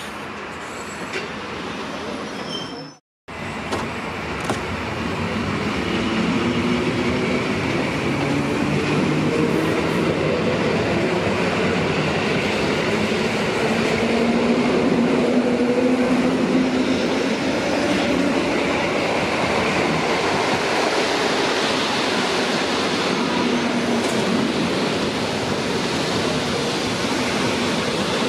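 Electric multiple unit suburban train pulling away: after a brief gap about three seconds in, its traction motors whine in several tones that rise in pitch as it gathers speed, over the steady rumble of wheels on the rails.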